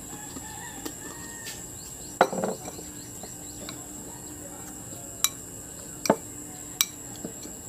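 A metal spoon clinking and knocking against a ceramic bowl and jar, a handful of sharp clinks, the first and loudest about two seconds in with a short ring, as a dip is spooned out of a jar. Steady high insect buzzing, like crickets, underneath.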